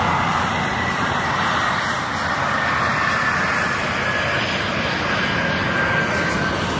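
Propeller airplane's engine running loud and steady, with a thin whine that slowly falls in pitch.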